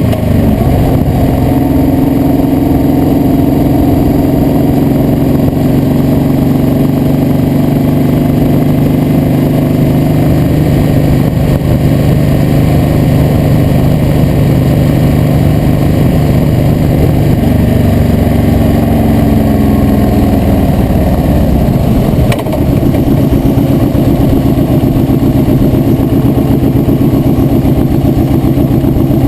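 Motorcycle engine running steadily while riding. Its pitch sags about two-thirds of the way through, a brief click follows, and the engine runs on at a lower pitch.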